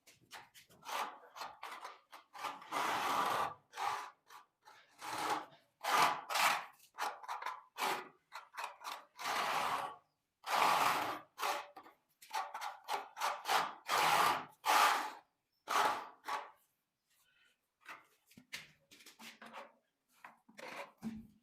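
Notched trowel scraping through tile adhesive or mortar in repeated strokes, about one a second, some short and some drawn out; the strokes thin out and grow fainter near the end.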